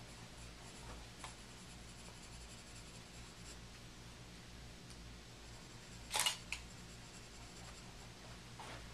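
Faint scratching of a carbon pencil on drawing paper during shading, with two louder quick strokes about six seconds in, over a faint low hum.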